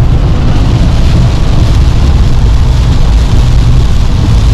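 Steady road noise inside a small car at motorway speed in heavy rain: a loud low rumble from the tyres on the wet road under an even hiss of spray and rain.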